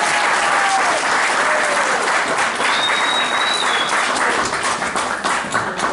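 Audience applauding, with a few voices cheering over the clapping and a high whistle about three seconds in. The clapping thins out near the end.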